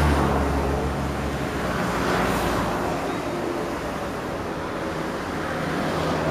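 Engines of two light aerobatic aircraft droning overhead. The low engine note is strongest at the start and fades, then a broad rushing swell comes about two seconds in as they pass.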